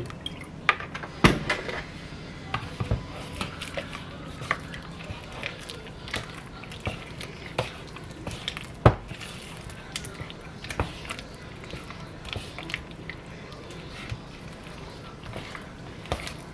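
Kitchen utensils and cookware clinking and knocking irregularly, with two sharper knocks, one about a second in and one about nine seconds in, over a low steady hum.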